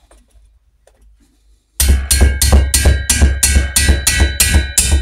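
Mallet blows on a steel tool hooked into the rocker spindle's groove, turning the tight-fitting rocker spindle in the cylinder head. After a few light handling clicks, a steady run of loud strikes begins about two seconds in, about three a second, each with a metallic ring.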